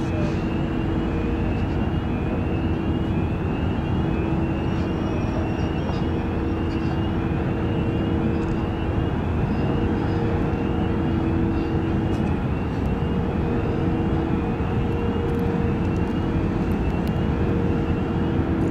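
Large ship's engines and machinery running with a steady drone. Two held tones ride over a low rumble, and a faint high chirp repeats through it.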